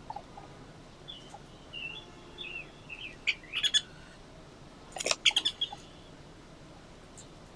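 Birds chirping: a string of short, high chirps, then two clusters of sharp, louder calls, the loudest about five seconds in.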